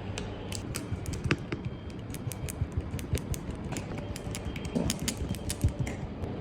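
Rapid, irregular light clicks and taps of small hard objects, several a second, over a steady low background hum.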